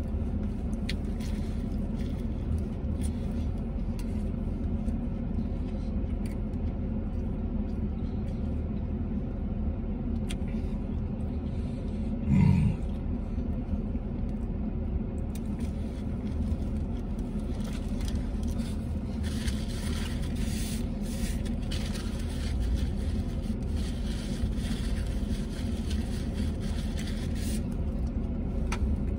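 Steady low hum inside a vehicle cabin, with faint crinkling of a sandwich wrapper and chewing over it, busier in the second half. About halfway through comes one short, loud vocal sound.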